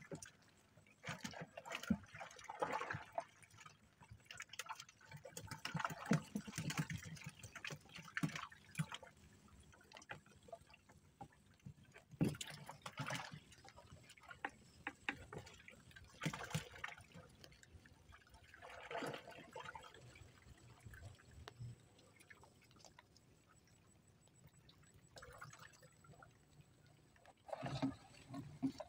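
Water splashing and dripping in irregular bursts as a fish trap is handled and emptied.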